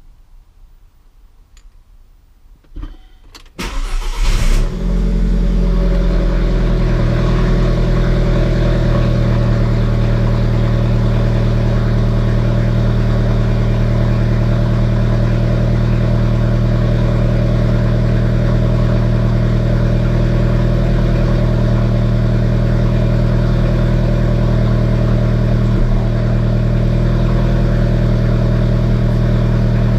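Alfa Romeo 4C's 1.75-litre turbocharged four-cylinder engine starting about four seconds in, then idling steadily. It is running for the gearbox's clutch adjustment routine on a newly installed transmission control unit.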